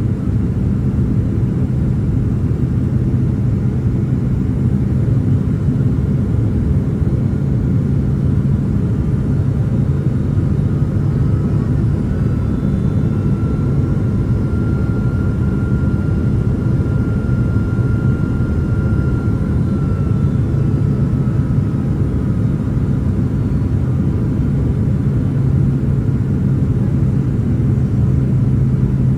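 Steady low rumble of engine and airflow noise inside the cabin of a Boeing 767-300ER airliner on approach. A faint high whine comes in around the middle and fades away.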